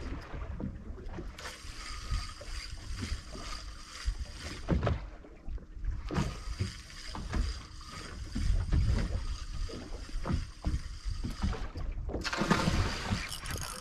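Water lapping and knocking against the hull of a small boat drifting on calm sea, with a low, uneven rumble of wind on the microphone.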